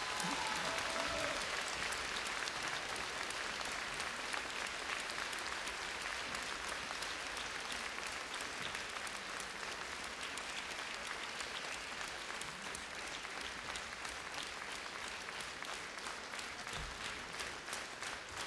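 Theatre audience applauding steadily, easing off slightly toward the end.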